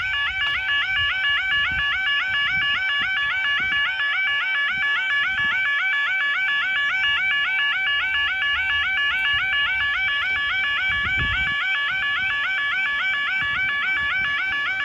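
Level crossing audible warning alarm sounding: a loud, rapidly repeating electronic warble, about four swoops a second, that cuts off suddenly near the end.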